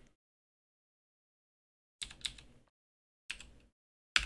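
Three separate computer keyboard keystrokes: one about two seconds in, one about a second later, and one near the end, each a short sharp click, with dead silence before the first.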